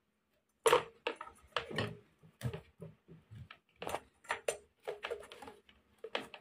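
Hard parts clicking and knocking against each other and the thick plastic jar as a used ceramic-cutting disc is fitted by hand onto an angle grinder's spindle inside the jar. It is an irregular run of sharp clicks and taps, the loudest under a second in.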